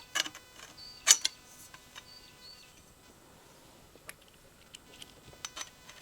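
Light clicks and knocks of frame pieces and frame clamps being handled and fitted together during assembly. The loudest knock comes about a second in, followed by scattered small ticks.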